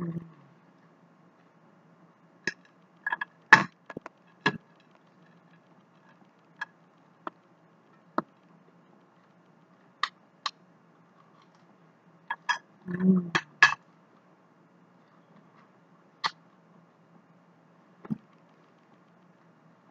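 Eating sounds: scattered sharp clicks and smacks from a metal fork against a paper plate and from chewing, with a short hummed "mm" at the start and again about 13 seconds in.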